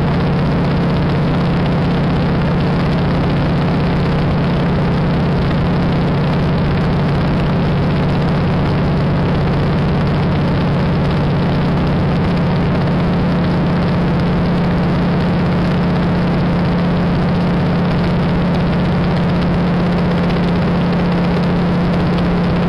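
De Havilland Beaver's nine-cylinder Pratt & Whitney Wasp Junior radial engine and propeller droning steadily, heard inside the cockpit, with a strong low hum and no change in level.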